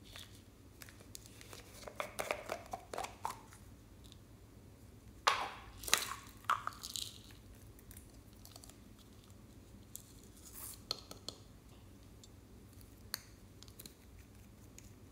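Small plastic containers being handled and opened by hand: a run of crackling plastic clicks about two seconds in, the loudest snaps and scrapes around five to six seconds, then a few lighter clicks.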